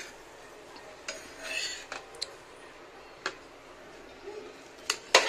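Steel spatula scraping under a dosa on a cast-iron tawa and clinking against the pan and a plate as the cooked dosa is lifted off and set down. A short scrape comes early, then a few separate sharp clinks, the loudest two near the end.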